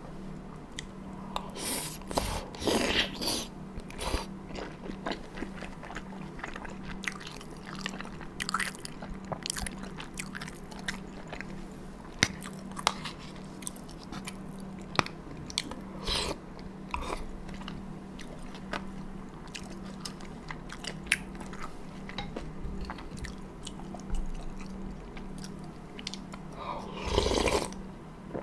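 Close-miked eating sounds of a person biting into and chewing large dumplings from beef bone broth (sagol mandu-guk), with many small wet mouth clicks. Louder, longer wet mouth sounds come about two seconds in and again near the end. A faint steady hum sits underneath.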